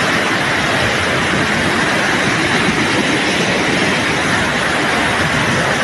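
Flash-flood torrent of muddy water rushing down a steep, narrow street, a loud steady rush of churning water.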